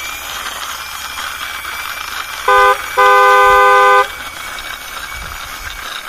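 Two-note car horn: a short toot about two and a half seconds in, then a longer honk of about a second, over a steady hiss.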